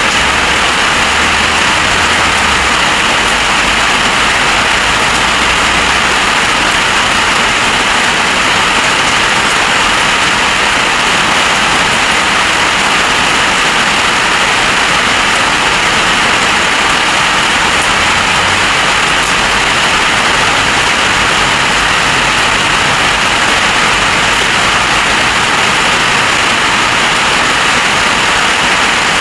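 Heavy storm rain pouring down steadily, a dense, even hiss with no letup.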